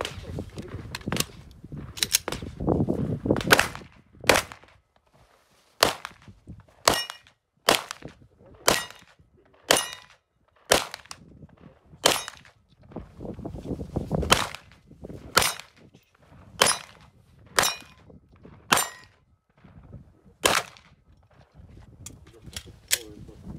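Glock 17 9 mm pistol firing some two dozen single shots at a steady pace of roughly one a second, with a few quicker pairs and short pauses. Several shots are followed by a brief ring from steel targets being hit.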